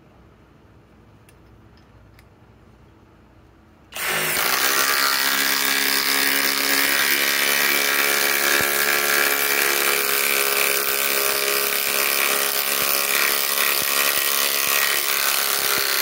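Kobalt XTR impact driver hammering steadily under load as it sinks an 8-inch lag screw into stacked lumber. It starts about four seconds in, runs for about twelve seconds and stops suddenly.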